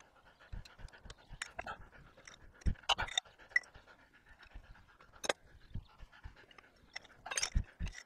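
A man breathing hard and panting as he heaves on a pipe cheater bar, with the clicks and knocks of the ratchet and steel on heavily rusted plow bolts. The loudest knocks come about three seconds in, just after five seconds and in a cluster near the end.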